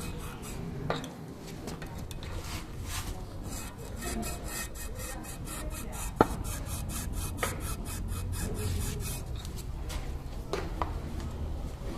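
Worn suspension control arm bushing creaking as the suspension moves: a rapid rubbing, rasping creak with a few short, sharp squeaks that drop in pitch. The loudest squeak comes about six seconds in. The noise is the sign of a worn control arm bushing.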